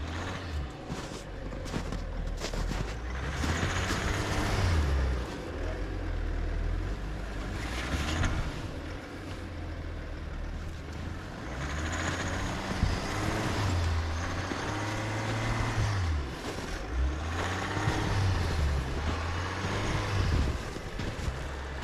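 Lifted GMC Sierra AT4 pickup's engine working under load in deep snow, its revs rising and falling again and again, with several bursts of hiss.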